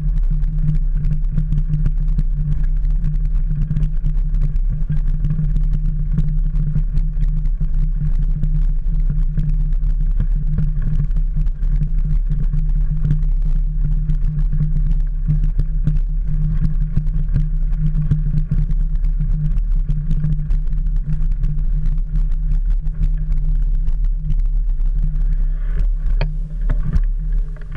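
Steady low rumble of the mountain bike rolling over a dirt and gravel trail, with wind buffeting and vibration through the handlebar-mounted camera; the rumble eases slightly near the end as the bike slows.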